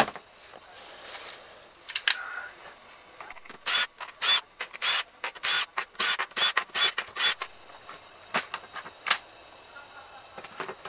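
Screws being backed out of a SKIL 6222 corded drill-driver's plastic housing with a driver bit, heard as a run of about a dozen short sharp bursts in the middle, with scattered clicks and handling around them and a knock right at the start as the drill is set down.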